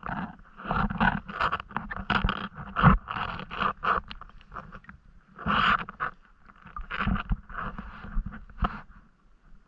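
Water sloshing and splashing against a camera held right at the surface as a swimmer moves through a canal, in irregular bursts with short quieter gaps.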